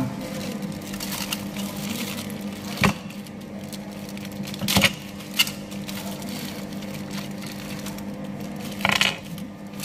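Thin clear plastic bag crinkling and rustling as it is handled and opened, with a few sharp clicks and crackles, over a steady low hum.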